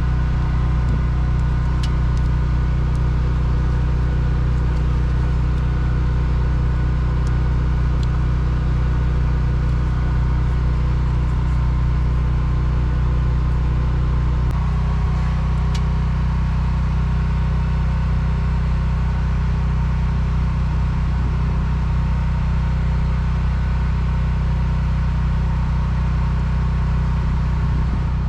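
An engine running steadily at idle, a constant low hum whose tone shifts slightly about halfway through.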